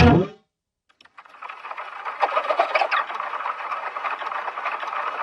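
A brief electronically distorted vocal burst right at the start, then after a second of silence a dense, steady buzzing rattle of heavily effects-processed cartoon audio.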